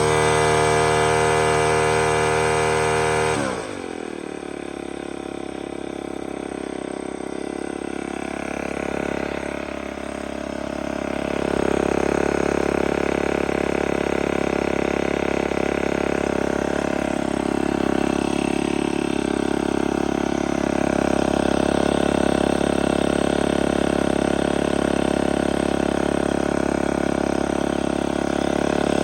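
Black Max four-stroke string trimmer engine running at high speed, then the throttle is let off about three and a half seconds in and the pitch falls quickly to a steady idle that wavers a little now and then. It is running again now that the water has been cleared from its fuel.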